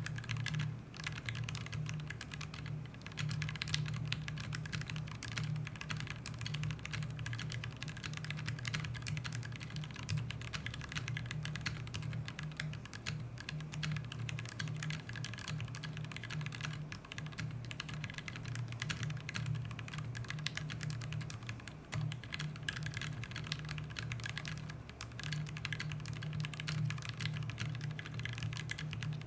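Continuous typing on a mechanical keyboard fitted with Gateron Milky Yellow linear switches on a polycarbonate plate: a dense, unbroken stream of key clacks.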